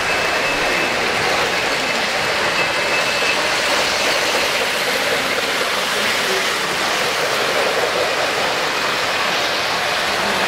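O-gauge three-rail model trains rolling past close by, a steady rumble and clatter of wheels on the metal track, with a thin steady high tone during the first three seconds or so.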